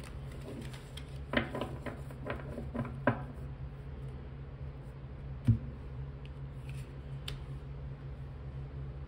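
Tarot cards being handled on a table: a run of light clicks and taps, then a single knock about five and a half seconds in, over a steady low hum.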